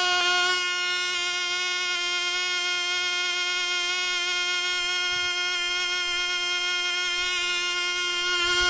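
MP Jet .061 two-stroke model engine running at full speed on a test stand with an APC 5½×2½ propeller, a steady high-pitched buzz at a little over 21,000 rpm. The owner finds it not quite smooth at this needle setting and does not want to lean it any further.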